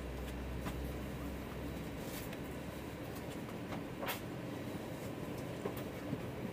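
Airbus A321 passenger cabin at the stand: a steady low hum with a few scattered clicks and knocks, the strongest about four seconds in. The deepest part of the hum drops away about two seconds in.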